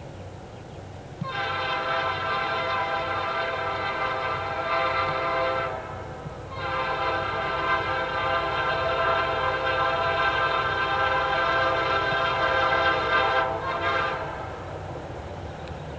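Lead SD60 diesel locomotive's air horn sounding two long blasts and a short one, over the steady low rumble of the departing train's engines.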